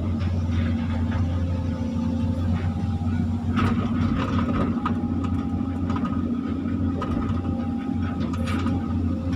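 Volvo excavator's diesel engine running steadily under load, heard from inside the operator's cab, with a steady whine over it as the boom swings. A few knocks and rattles, the loudest a little before halfway.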